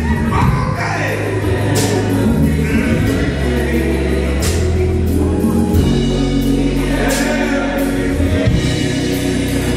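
Gospel choir singing live with band accompaniment: many voices over held bass notes, with a few sharp crashes.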